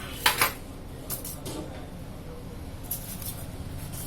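Sharp plastic clicks from a Nokia 2220s phone's casing being handled during disassembly. Two come close together about a third of a second in, followed by a few fainter ones.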